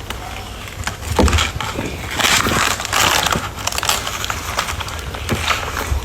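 Close-miked eating: crunchy bites and chewing, irregular crackling crunches that are loudest a couple of seconds in.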